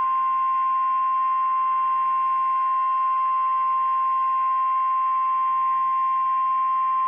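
NOAA Weather Radio warning alarm tone: a single steady, loud, high-pitched tone of about 1050 Hz, held unbroken over faint radio hiss and hum. It signals that a warning message is about to be broadcast.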